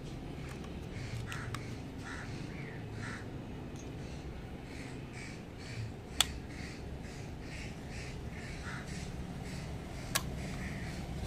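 Crows cawing repeatedly in the background, with two sharp clicks, one near the middle and one near the end, from the opening door of a die-cast model car.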